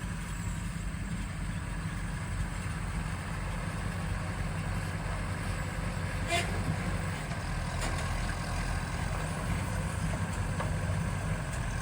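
Engine running steadily at an even speed, with a brief high chirp about six seconds in.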